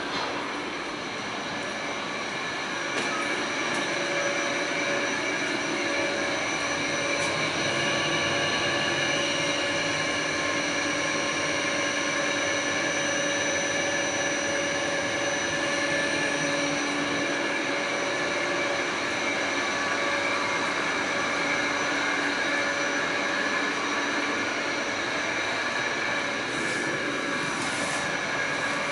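Pullman-Standard R46 subway car running, heard from inside: a steady rumble of the car with several steady high tones over it, rising a little about three seconds in.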